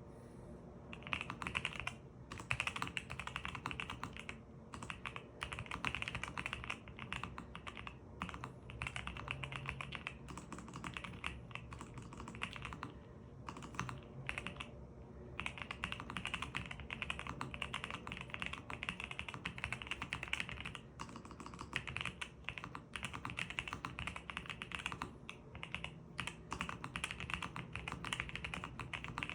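Typing on a GMK67 custom mechanical keyboard with Morandi switches and low-profile keycaps, its PCB tape-modded and its stock stabilizers plumber-modded. It is a fast, steady run of keystrokes starting about a second in, with a few brief pauses and a longer one near the middle. It is heard through a phone's microphone.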